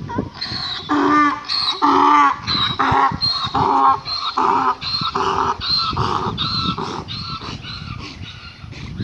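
A mule braying: a long run of rapid hee-haw calls, about two a second, alternating high and low, fading toward the end.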